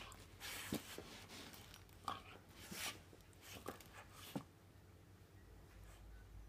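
Border collie puppy rolling and pawing on a carpet: several faint scuffs and rustles spread over the first four seconds or so.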